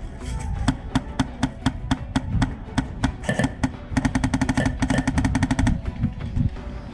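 Airsoft rifle firing: scattered single shots over the first three seconds, then a fast automatic burst of about fourteen shots a second from about four seconds in to nearly six.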